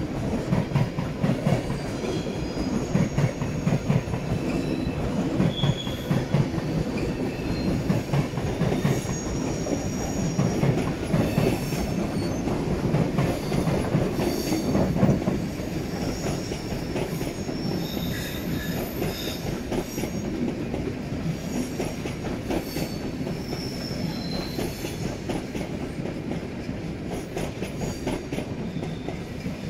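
Passenger trains rolling over the switches of a busy station approach: a dense clatter of wheels over rail joints and points, with short high wheel squeals scattered through it. It is loudest in the first half and eases off a little after about 15 seconds as the trains move clear.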